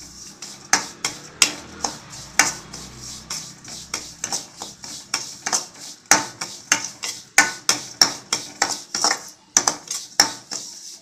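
A spoon scraping and knocking against a steel kadai while stirring semolina and cashews as they roast over a low flame. The strokes are quick and uneven, two or three a second, and grow busier after the first couple of seconds.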